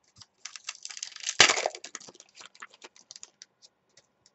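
Trading cards being handled and shuffled through by hand: a quick run of card-stock clicks and flicks, with one louder tap about one and a half seconds in, then thinning to scattered ticks.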